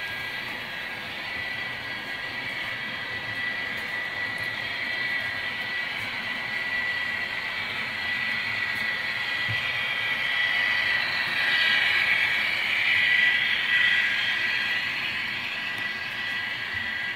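HO scale model trains running down a layout helix: a steady high whine with rolling wheel noise on the track, swelling louder for a few seconds about twelve seconds in.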